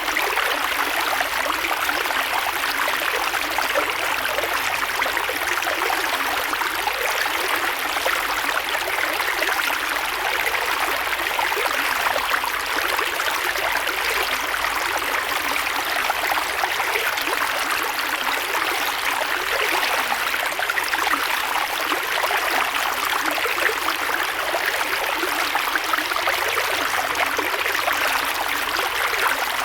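Creek water flowing steadily over stones: a constant rushing babble with fine trickles and splashes, little deep rumble.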